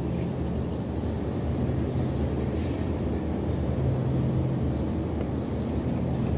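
A steady low machine hum, an even drone with no change in level, with a few faint mouth sounds of eating by hand on top.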